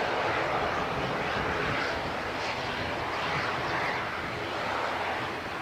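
Jet engine noise of an Airbus A320 airliner on departure, a steady rushing roar that slowly fades as the aircraft climbs away.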